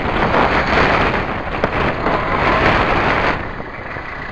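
Toyota Hilux pickup driving through shallow creek water, its tyres splashing and churning the water over a low rumble. The splashing cuts off about three seconds in as the truck comes to a stop against the sand bank.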